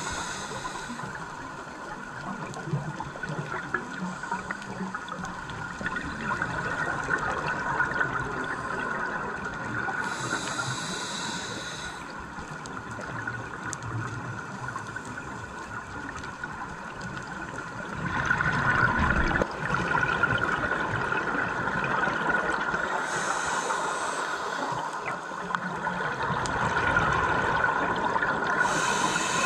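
Scuba regulator breathing heard underwater: a steady muffled water hiss, broken a few times by bursts of exhaled bubbles, each lasting a second or two.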